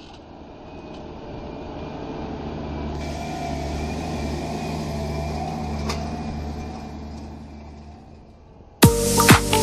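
Large farm tractor's diesel engine running steadily under load while working a field, with a faint whine above the engine note, fading in and then out. Near the end, loud electronic dance music with a strong beat starts abruptly.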